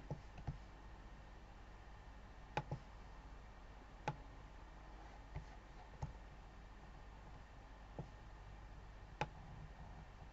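Computer mouse clicking, single clicks scattered a second or more apart, about ten in all, over a faint steady low hum.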